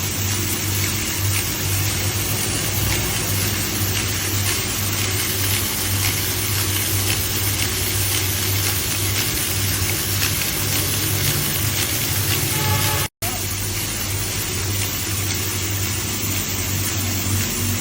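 A 55 kW diamond wire stone-cutting saw running steadily, with a low hum under a constant hiss. The sound cuts out abruptly for a split second about thirteen seconds in, then resumes unchanged.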